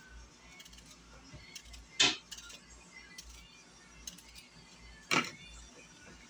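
A metal fork making two sharp taps about three seconds apart, with faint light clinks in between.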